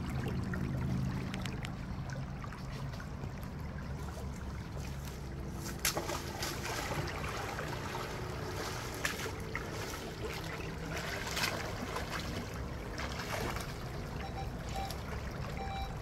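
Shallow stream flowing over stones, with boots wading through the water and a few short splashes.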